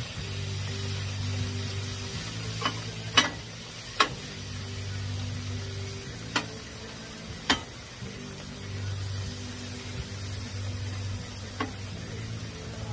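Sliced flank steak frying in sauce on a Blackstone flat-top griddle, sizzling steadily while a metal spatula pushes and turns it, with several sharp clacks of the spatula against the steel cooktop.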